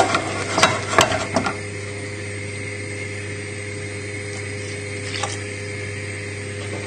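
A wooden spoon stirring and scraping thick mashed potato in a saucepan, a few knocks against the pan for about a second and a half, then it stops and only a steady low hum remains.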